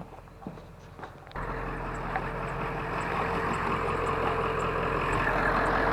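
A few faint clicks, then about a second and a half in a truck engine idling comes in suddenly and runs steadily, growing slowly louder.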